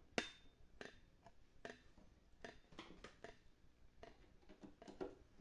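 Faint, irregular clicks and taps of a screwdriver and screws being worked into the amp cabinet's top, with one sharper click just after the start.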